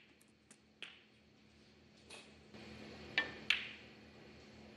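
Snooker balls clicking: two sharp clicks about a third of a second apart, a little past the middle, with a few fainter clicks earlier, over a quiet arena background.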